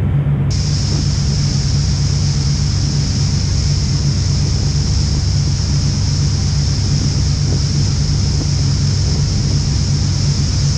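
Motorboat under way at speed: the engine drones steadily under the rushing and churning of its wake. A steady hiss comes in about half a second in.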